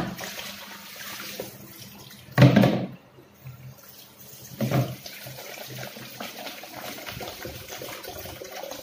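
Water splashing in a stainless steel sink as broccoli florets are rinsed in a plastic colander, with three louder splashes: at the start, about two and a half seconds in, and just before five seconds.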